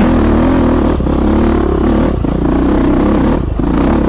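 Suzuki DR-Z400E single-cylinder four-stroke dirt bike engine running under way, its revs rising and falling as the bike is ridden along a trail. It drops to slower, distinct pulsing beats near the end. The sound is picked up by a small clip-on microphone on an open-face helmet.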